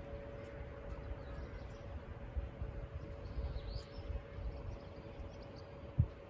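Outdoor ambience: wind rumbling on the microphone, a faint steady hum and a few faint bird chirps, with a brief thump near the end.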